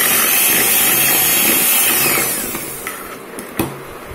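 Electric kitchen mixer motor running at full speed, blending milk into cake batter; its whine rises as it spins up and falls as it winds down about two seconds in. A sharp click follows near the end.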